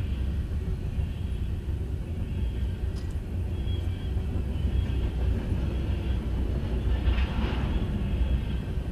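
Norfolk Southern freight train's cars rolling past: a steady low rumble of wheels on rail, with faint high-pitched squeals now and then and a brief burst of noise about seven seconds in. It is heard from inside a parked car.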